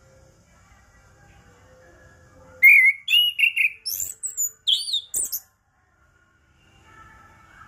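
Chestnut-capped thrush (anis kembang) singing a loud phrase of quick, gliding whistled notes. The phrase starts about two and a half seconds in and lasts about three seconds, over faint background bird calls.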